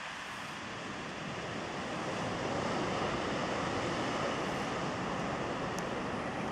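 Atlantic surf breaking on the rocks at the foot of the cliff, heard from above as a steady rushing wash that grows louder about two seconds in, with wind buffeting the microphone.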